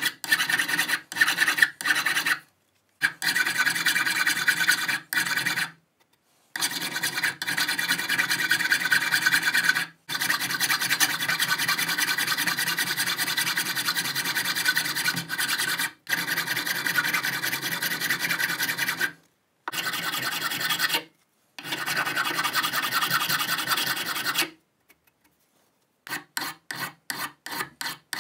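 A flat hand file rasping back and forth over a stainless steel hex nut held in a vise, the strokes running together into a steady scrape, broken several times by sudden cuts to silence. Near the end the strokes come short and separate, about four a second.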